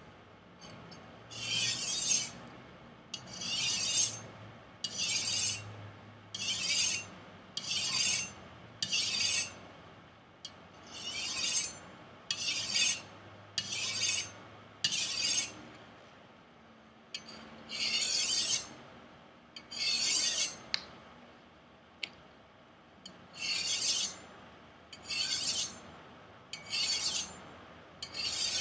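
Chinese chef knife's steel edge being stroked repeatedly across a ceramic sharpener: about sixteen short, high scraping hisses, roughly one every second and a half, with a couple of brief pauses. The edge is being honed on the ceramic to remove the micro rolls left along it.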